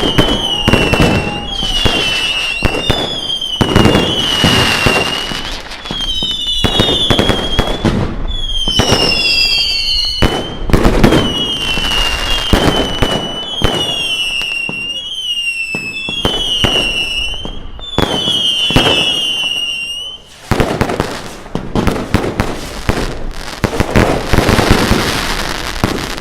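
Fireworks display: a rapid barrage of short whistling shots, about one whistle a second, among sharp bangs. About twenty seconds in the whistles stop and a denser noisy stretch with more bangs follows.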